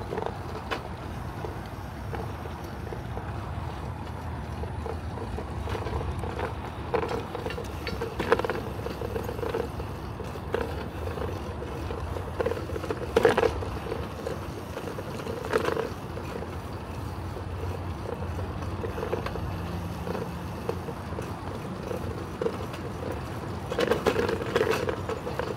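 Riding a bicycle along a paved path: a steady low rumble of tyres and wind on the microphone, broken a few times by short sharp rattles or knocks, the loudest about thirteen seconds in and a cluster near the end.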